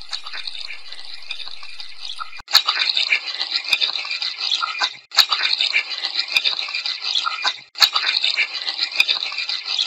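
Running tap water filtered through Crystal Sound AI noise-cancellation software on its Telephone setting, heard as a loud, choppy hiss broken by a few short gaps and sharp clicks. The uploader hears it as a spirit voice saying "I'm trying to visit you".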